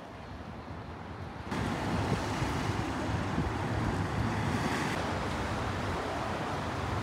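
Seaside ambience: a steady rush of sea waves with wind buffeting the microphone, which jumps suddenly louder about a second and a half in.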